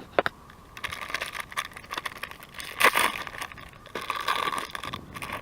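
Crinkling and crackling of something being broken up by hand, in irregular bursts that are loudest about three seconds in and again about four seconds in.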